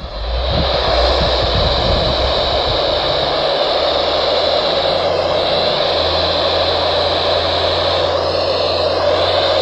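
Steady hiss of static from a weather radio receiver, running evenly with no speech over it.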